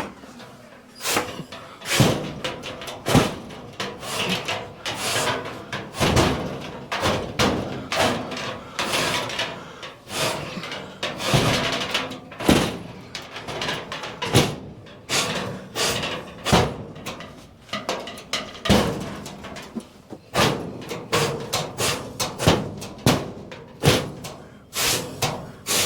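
Chimney brush being worked through a sheet-metal stovepipe, with irregular scraping and sharp metallic knocks, a few every couple of seconds.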